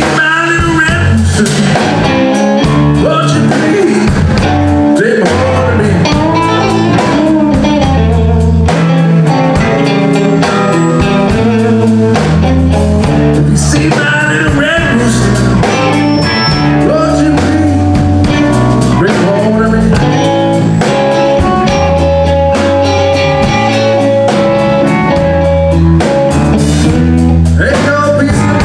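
Live blues band: a man singing over electric guitar, electric bass and drums, with a steady beat and a long held note about two-thirds of the way through.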